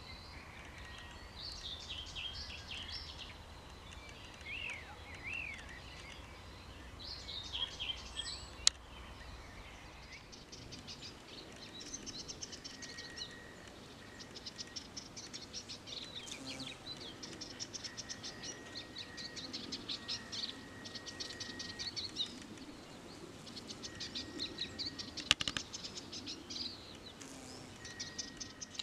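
Several small birds singing outdoors, with series of quick high chirps and rapid trills overlapping throughout. Two sharp clicks stand out, one about a third of the way in and one near the end.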